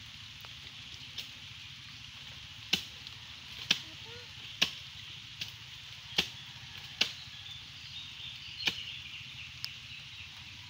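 Chopping into the soft, rotten pulp of a sago palm stump: about ten sharp strikes, roughly one a second at an uneven pace, over a steady high hiss.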